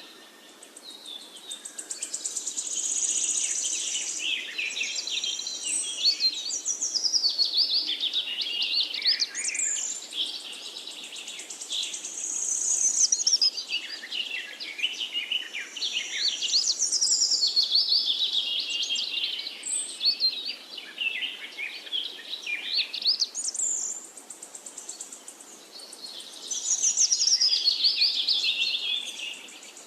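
Songbirds singing: long, varied high-pitched phrases full of rapid trills and quick pitch sweeps, one bout after another with brief lulls between.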